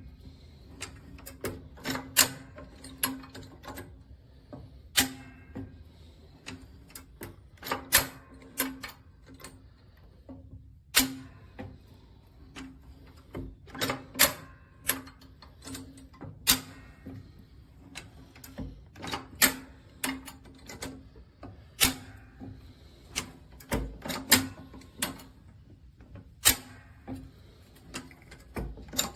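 Metal clicks and clacks of a high-lift farm jack's climbing pins snapping in and out as the handle is pumped, coming irregularly about once or twice a second over a steady low hum.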